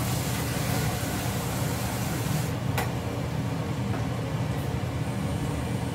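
Water running from a kitchen sink tap over a steady low hum; the tap shuts off about halfway through, followed by a single click.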